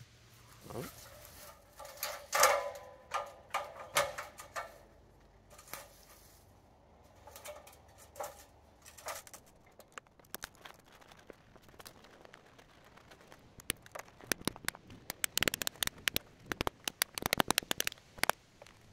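Hand work reattaching tar paper to a wooden box blind: scattered knocks and clatter, then a dense run of quick, sharp clicks and crackles near the end.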